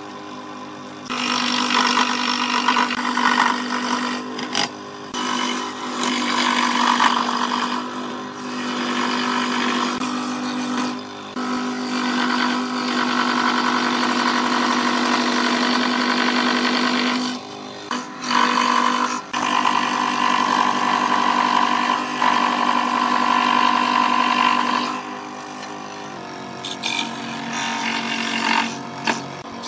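Ryobi 405 mm scroll saw running and cutting a wooden board: a steady motor hum under the rasp of the reciprocating blade. The sound drops out briefly several times and is quieter near the end.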